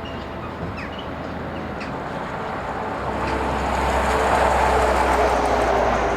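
A train approaching and passing close, its running noise swelling to a peak about four to five seconds in over a low, steady engine hum.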